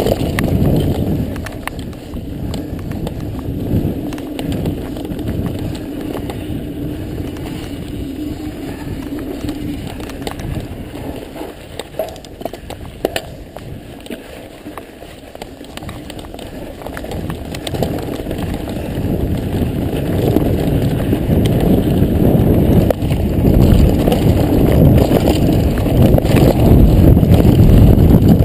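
Mountain bike riding down a dirt trail: tyres rolling over dirt and stones and the bike rattling over bumps, under a constant rush of wind on the camera's microphone. It eases off somewhat in the middle and grows louder over the last several seconds.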